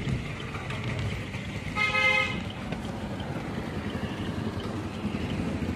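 A vehicle horn gives one short toot about two seconds in, over steady road traffic noise.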